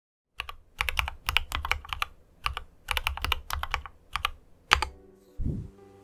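Typing on a mechanical keyboard: quick runs of sharp key clacks with short pauses between them, stopping just before five seconds in, followed by a single low thump.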